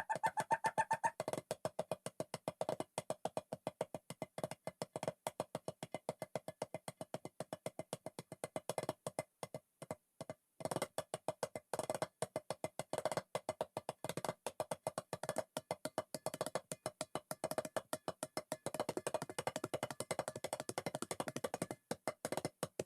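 Music with a fast, even, clicking percussion beat over a steady held note.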